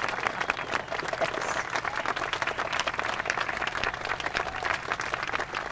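Crowd applauding, many hands clapping steadily.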